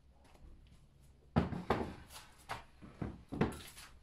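A run of knocks and clunks on a wooden board: a wooden cupboard door and a plastic paint tray being set down on a plywood work surface. There are about eight sharp knocks, starting about a second and a half in.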